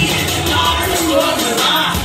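Hip hop backing track with a held, sliding vocal line over it and the deep bass dropped out; the bass comes back right after.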